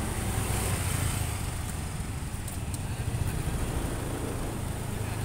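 Street traffic noise dominated by motorcycle and scooter engines running nearby, a steady low rumble.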